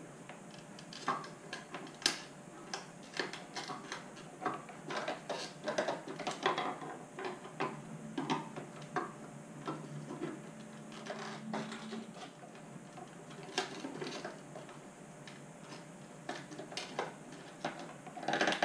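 Irregular small plastic clicks, taps and creaks from prying with a screwdriver at a stubborn retaining tab inside an Audi S4 B7 headlight housing.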